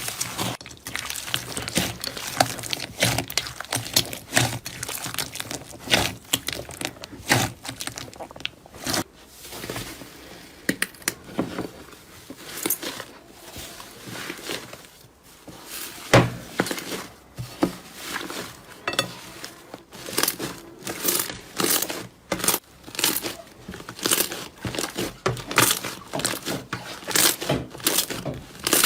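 Slime being pressed and squeezed by hand, giving a run of sharp clicks and pops that come faster and more evenly in the last third.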